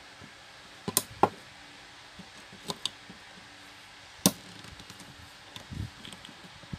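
Sharp metallic clicks and taps, the loudest about four seconds in, with softer knocks near the end, as the sleeve-bearing bush and its spring retaining clip are pressed back into a stand fan motor's metal end housing.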